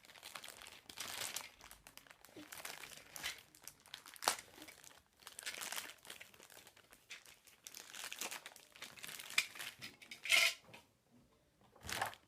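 Packaging being handled and unwrapped, crinkling and rustling in repeated bursts, with a few sharp knocks in between.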